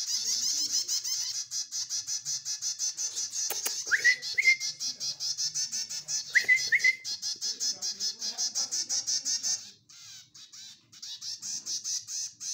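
Hand-fed 25-day-old chicks begging with a fast, continuous train of high-pitched chirps. Two pairs of louder rising chirps come about four and six and a half seconds in, and the chirping stops briefly near the end.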